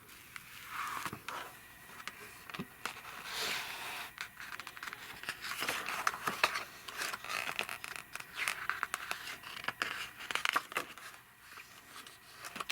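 Irregular rustling, crinkling and scraping of a picture book being handled and its pages turned.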